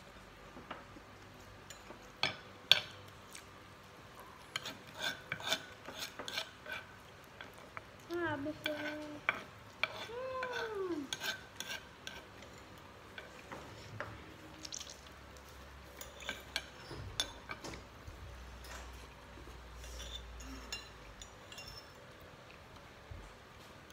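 Tableware clatter during a meal: a spoon scraping and clinking in an earthenware pot and against plates, with scattered sharp clicks throughout. The loudest is a single sharp knock about three seconds in.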